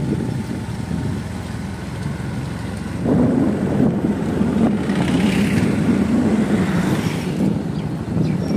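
Motorcycle engine running under way, growing louder about three seconds in as the bike pulls onto the smooth road.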